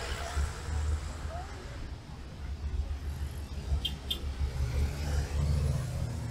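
Street traffic: a motor vehicle's engine rumbling nearby, with two short high chirps a little past the middle and faint voices near the end.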